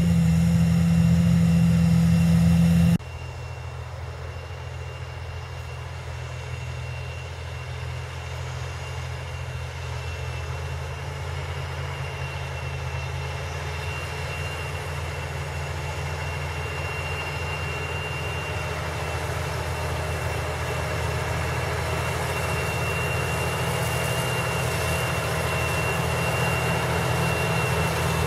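John Deere 8285R tractor's six-cylinder diesel engine running steadily while pulling a Lemken Rubin 9 disc harrow through stubble. It is loud and close at first, drops suddenly about three seconds in, then grows steadily louder as the tractor comes nearer, with a faint steady high whine over it.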